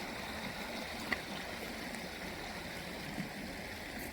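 Steady rush of a flowing stream, with a faint click or two.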